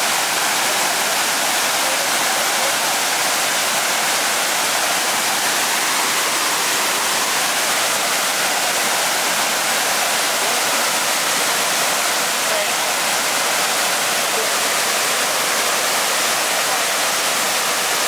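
Waterfall: water pouring over cascades into a pool, a steady, unbroken rush with most of its energy in the higher range.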